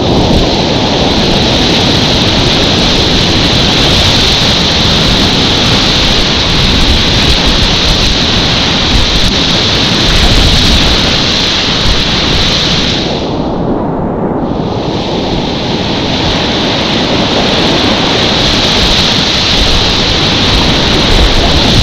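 Loud, steady rushing of class 4 whitewater rapids. About thirteen seconds in the high hiss drops away for a second or so, leaving a muffled rumble, then comes back.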